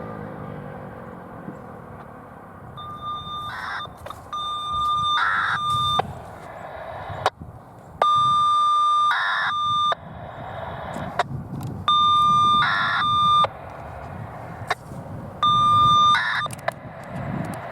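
Federal Signal 2001-SRN rotating warning siren finishing its wind-down, its falling tone fading out within the first second or two. Then a steady electronic beep sounds five times, each lasting one to two seconds, with a short burst of noise in the middle of each. The beeps are the loudest sound.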